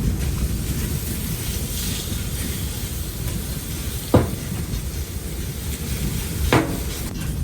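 Blizzard wind buffeting the microphone with a steady low rumble and hiss, broken by two short sharp snaps about four and six and a half seconds in.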